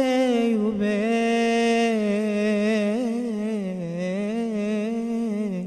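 A man singing an Egyptian Arabic song unaccompanied, drawing out the closing phrase as one long wavering held note with small vocal ornaments. It ends just at the close.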